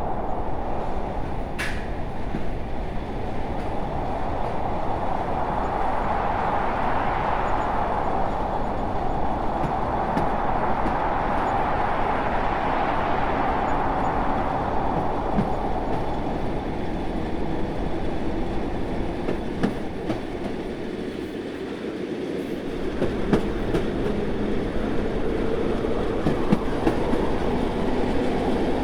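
Train running on the rails: a steady rumble that swells and eases twice, with scattered clicks from the wheels toward the end.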